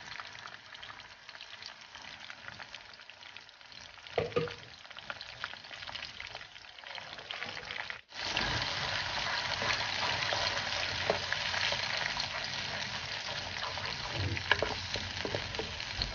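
Freshly blended wet spice paste sizzling in hot oil in a non-stick wok, with a short knock about four seconds in. About halfway through the sizzle turns suddenly louder, and near the end a wooden spatula stirs and scrapes the paste.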